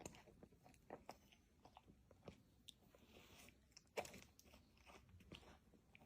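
Faint chewing and crunching of a pet eating, with irregular crunches and a louder crunch about four seconds in.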